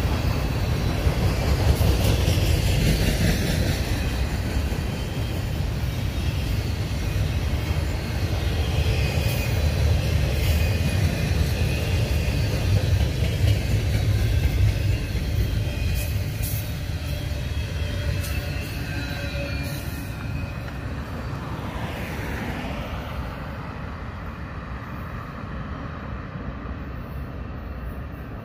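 Double-stack intermodal container train passing at trackside: steady rumble and rattle of the well cars rolling over the rails, with faint high wheel squeal in places. The sound fades over the last several seconds as the train moves away.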